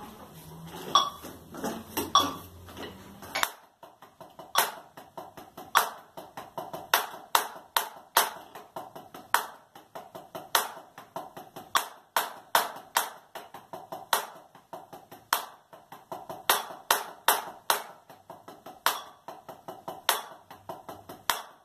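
Wooden drumsticks on a rubber practice pad playing a slow double paradiddle exercise with sextuplet (sextina) groups at 50 BPM. Accented strokes stand out about every beat against soft taps, with a metronome clicking.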